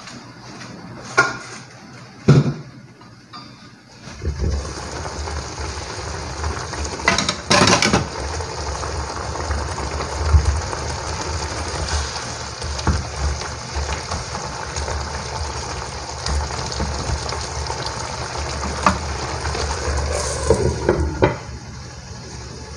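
Soy-sauce chicken simmering in a nonstick wok: a steady bubbling sizzle with a low rumble that starts about four seconds in. Before it come two short metallic knocks, and a few more clatters of utensil or lid come later.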